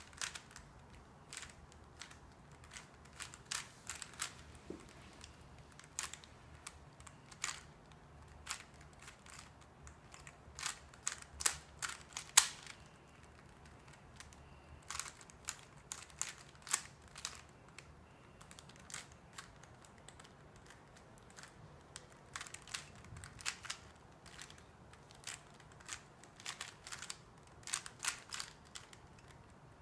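A speed cube (3x3 Rubik's cube) being turned quickly by hand: irregular runs of quick plastic clicks as the layers snap round, broken by short pauses between runs of turns.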